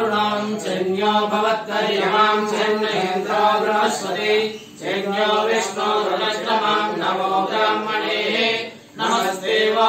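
Hindu priests chanting mantras together in a steady rhythmic recitation, with short breaks for breath about halfway through and near the end.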